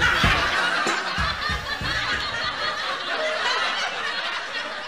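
A group of people laughing and snickering together. Low beats of hip-hop music run underneath for about the first two seconds.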